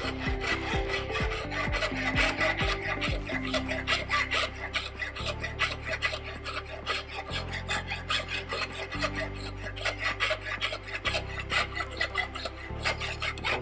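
Hand file rasping back and forth across the edge of a metal plate clamped in a bench vice, in regular strokes about three a second. This is the bevelling stage of weld-edge preparation: a 45-degree taper being filed for a single-V butt joint.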